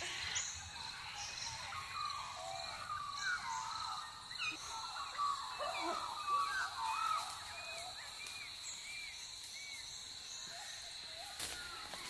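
Wild birds calling: a busy run of short whistled chirps, some repeated in a quick even series, that thins out about three-quarters of the way through, over a steady high-pitched hum.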